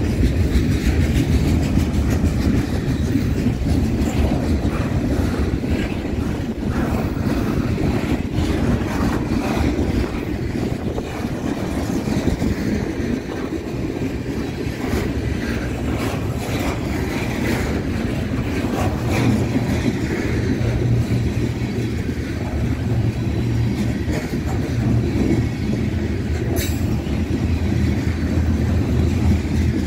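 BNSF freight train's cars rolling past: a steady low rumble with the wheels clicking over the rail joints, and one brief sharp high sound about 27 seconds in.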